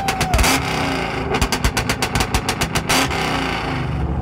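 Ford Mustang held on a two-step launch limiter: rapid exhaust bangs, about eight a second, in a short burst and then a longer one. The bangs stop about three seconds in and the engine runs on with a low rumble.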